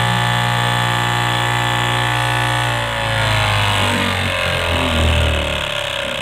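Electric straight-knife cloth cutting machine running, its upright reciprocating blade cutting down through a thick stack of fabric layers. The motor's steady whine sinks in pitch over the second half.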